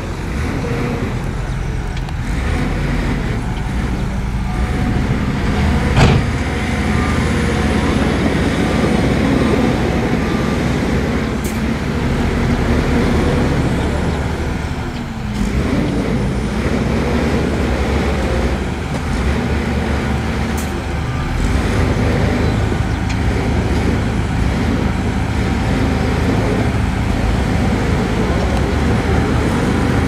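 Heavy diesel earthmoving machinery running steadily under load, with a single sharp metallic knock about six seconds in and a couple of fainter clicks later.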